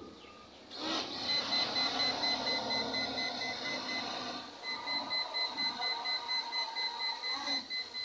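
Small folding camera quadcopter drone's propeller motors spin up about a second in, then give a steady high-pitched buzz as it lifts off and hovers just above the ground.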